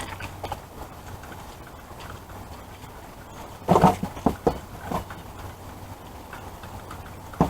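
A few quick knocks and clicks of small items being handled and set down, bunched together about four seconds in, over a low steady hum.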